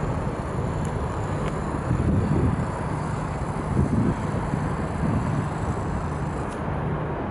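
Steady low engine drone with a held low hum, swelling louder a couple of times in the first half.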